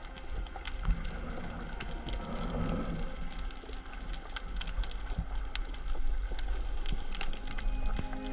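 Underwater ambience heard through a submerged camera: a steady low rumble of water with many scattered sharp clicks and crackles.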